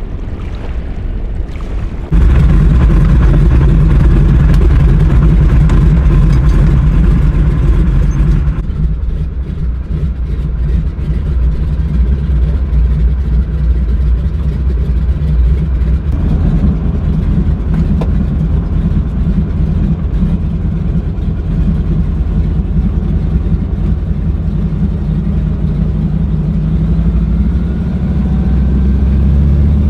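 A floatplane's radial piston engine running, heard at a distance for the first two seconds as the plane taxis on the lake, then loud and close from on board. Near the end the engine note rises as power comes up for the takeoff run.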